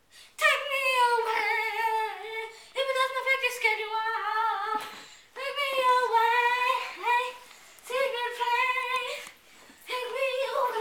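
A person singing in a high-pitched voice, without instruments: about five drawn-out, wavering phrases, each a couple of seconds long, with short pauses between them.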